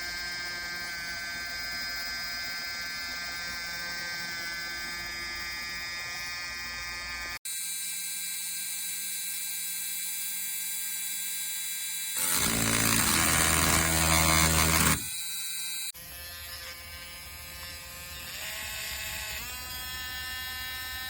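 Small cordless rotary tool's motor running with a steady high whine, in several separate takes with abrupt cuts between them. A louder, coarser stretch comes in the middle, and the pitch steps up near the end as the speed is raised.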